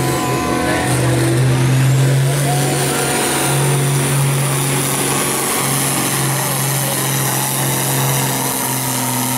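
John Deere pulling tractor's diesel engine running at full throttle under heavy load, dragging a weight-transfer sled, holding a steady high pitch throughout.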